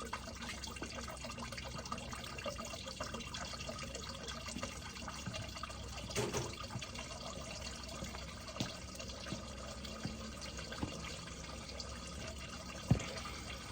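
Engine oil draining in a steady trickling stream from the open drain hole of a 2019 Can-Am Spyder F3 Limited, with a few faint knocks, the sharpest about a second before the end.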